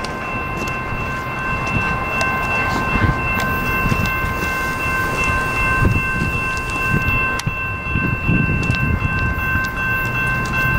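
Freight train locomotive and cars running by with a rough, uneven rumble and scattered knocks and rattles. A steady high-pitched whine of several held tones sits over it.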